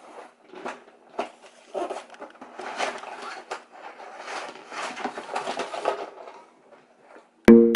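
Cardboard game box and plastic parts being handled and unpacked: irregular rustling and light clattering. Loud music cuts in just before the end.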